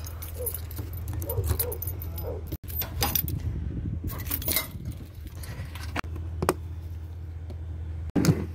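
A ring of keys jangling and clicking as a travel trailer's exterior compartment lock is worked open, over a steady low hum.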